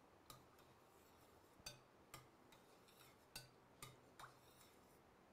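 A metal spoon clinking faintly and irregularly against a steel pot, about ten light taps, as cooked toor dal is mashed with water.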